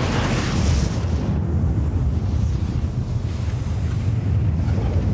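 Sustained deep rumble of a thermonuclear explosion, laid over film of the fireball: a steady, unbroken noise heaviest in the bass, with no separate bangs.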